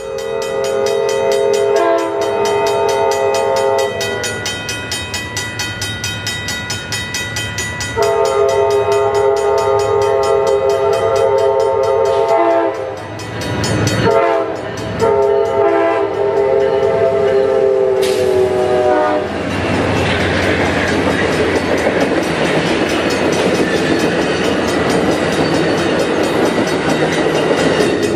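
Model Amtrak locomotive's sound system blowing a chime horn in a grade-crossing pattern of long blasts with one short blast between. From about two-thirds in, the horn stops and the train's running sound with wheel clatter carries on steadily.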